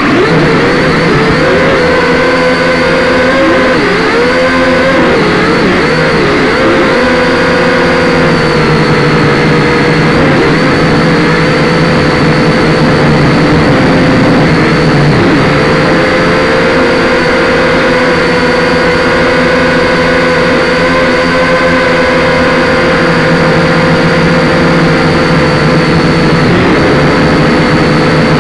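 Syma X5C-1 quadcopter's four small electric motors and propellers buzzing loud and close on the drone's own camera. The pitch wavers up and down with throttle changes in the first several seconds, then mostly holds steady in flight.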